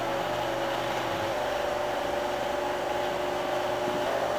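Steady mechanical hum with a whirring, fan-like noise and a few faint held tones.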